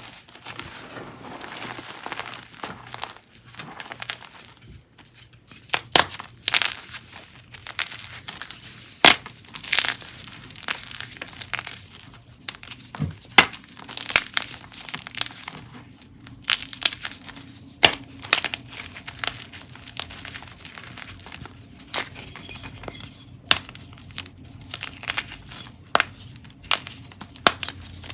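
Blocks and chunks of gym chalk being crushed by hand: irregular sharp cracks and crunches over a soft crumbling hiss.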